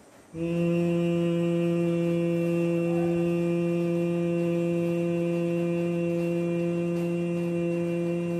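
A man humming one long 'mmm' through closed lips at a steady pitch, starting about half a second in: the exhaled humming-bee sound of bhramari pranayama.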